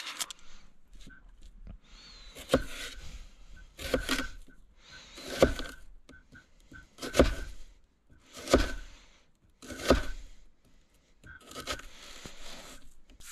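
An onion being peeled, its papery skin tearing, then sliced with a chef's knife on a plastic cutting board. There is a cut about every second and a half, each ending in a sharp knock of the blade on the board.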